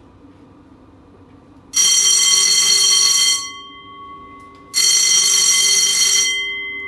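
Ship's general alarm ringing in two loud bursts of about a second and a half each, a little over a second apart, the second fading out near the end. It is the abandon-ship alarm calling all crew to the muster station.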